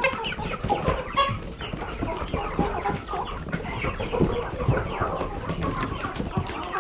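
A large flock of laying hens clucking and calling all at once, many short overlapping calls in a constant chatter.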